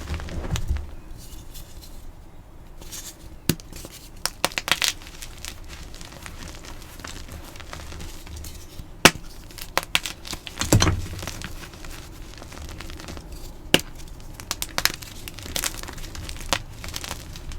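Blocks of gym chalk being crushed: a continuous crispy crackle broken by sharp, irregular snaps and crunches as the chalk breaks apart.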